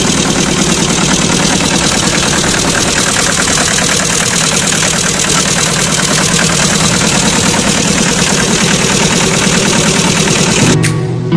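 An engine running steadily with a fast, even rattle, cutting off near the end as plucked-string music comes in.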